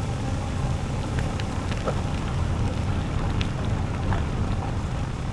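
A bicycle rolling along a trail: a steady low rumble of wind on the microphone and tyres on the path, with scattered small crackling ticks.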